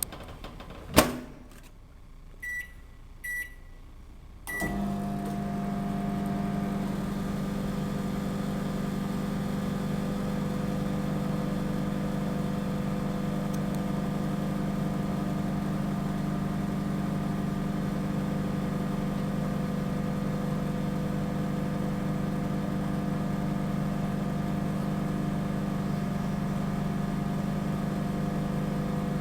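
Microwave oven being started: a sharp click about a second in, three short keypad beeps, then the oven comes on about four and a half seconds in and runs with a steady, even hum.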